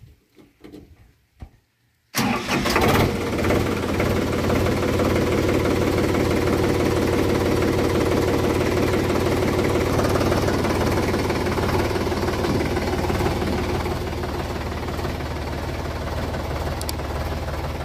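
Sonalika DI-47 RX tractor's diesel engine starting: it catches suddenly about two seconds in, then runs steadily at idle, settling a little quieter near the end.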